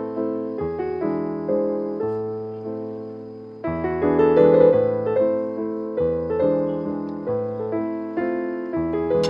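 Background piano music: notes struck and left to fade, with a long held chord dying away before a louder passage begins near four seconds in.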